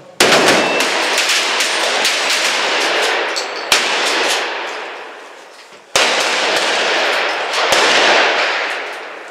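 Shotguns fired in quick succession by several shooters on a covered firing line, the shots overlapping with a long echo under the roof. There are two bursts of fire, one right at the start and another about six seconds in, each fading off before the next.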